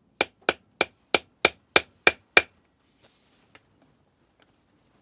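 Eight quick, loud hammer taps, about three a second, on a part of a cylinder head being stripped, followed by a few faint knocks.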